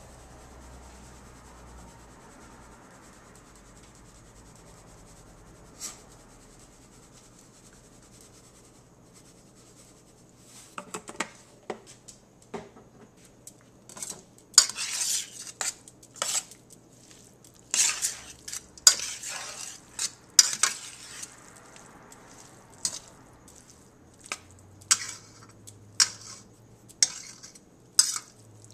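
A utensil scraping and clinking against a stainless steel pot as shredded pork carnitas are tossed and mixed. The clinks come in short, irregular strokes, starting about ten seconds in and growing busier toward the end.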